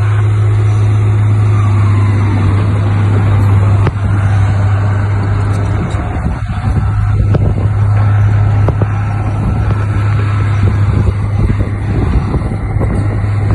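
Heavy diesel engine of an earthmoving machine running steadily at high revs, with a strong low drone and scattered knocks and rattles.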